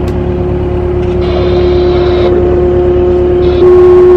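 Canal tour boat's engine running with a steady hum over a low rumble, getting louder about three and a half seconds in.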